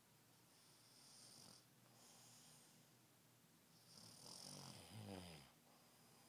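A man snoring in his sleep: two soft, airy breaths in the first few seconds, then a louder rattling snore about four seconds in whose pitch drops as it ends.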